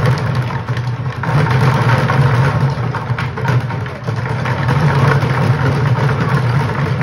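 A group of children beating upturned plastic five-gallon buckets with drumsticks, many sticks striking at once in a dense, continuous clatter with a deep hollow low end.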